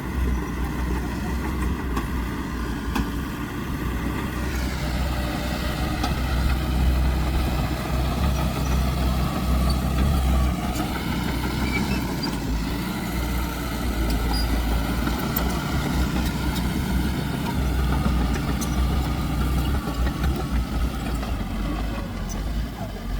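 Heavy diesel earthmoving machinery running under load: a steady low engine rumble with a layered whine that drops in pitch about four to five seconds in, then rises and falls again a few seconds later as the engine speed changes.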